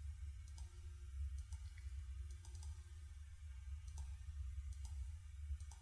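Faint clicks of a computer mouse button, several of them spread through, over a low steady hum.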